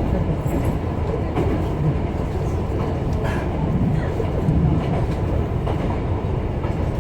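Steady running noise of a Kyoto Tango Railway diesel railcar heard from inside the car: a continuous low rumble of engine and wheels on the rails, with a few faint clicks.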